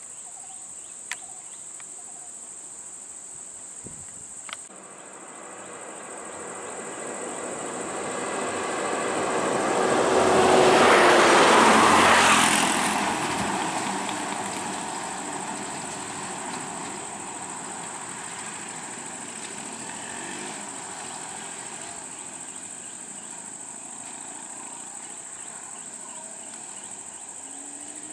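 A motor vehicle's engine passes close by, swelling from about five seconds in, loudest around eleven to twelve seconds, then fading away. Under it runs a steady high-pitched drone of insects, with two sharp clicks in the first few seconds.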